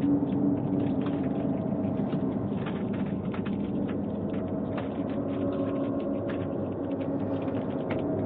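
Rain pattering, heard through a doorbell camera's microphone as a dense run of irregular small taps over a steady hiss, with a steady low hum underneath.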